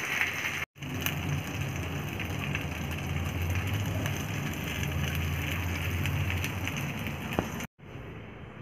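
Steady hiss with a low rumble from cooking on a gas stove. It stops at a cut near the end, where a quieter room tone takes over.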